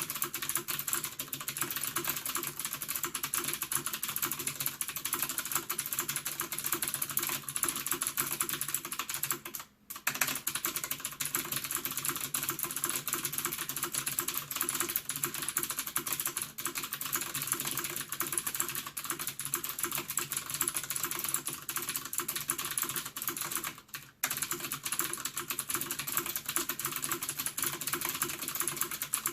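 Fast, continuous typing on a Ducky Shine 6 mechanical keyboard with clicky Cherry MX Blue switches: a dense stream of sharp key clicks. It breaks off briefly twice, about ten seconds in and again about two-thirds of the way through.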